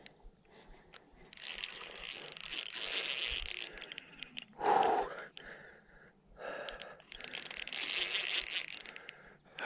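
Fishing reel's drag clicking rapidly as a hooked barbel runs and takes line, in two spells of a couple of seconds each.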